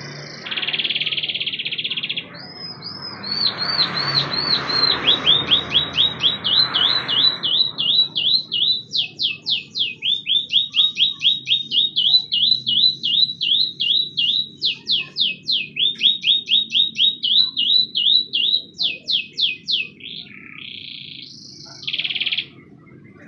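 Domestic canary singing a long song: a buzzy note at the start, then a run of rapid trills, each phrase a quickly repeated downward-sliding note several times a second, changing to a new phrase every few seconds, and a short buzzy note again near the end.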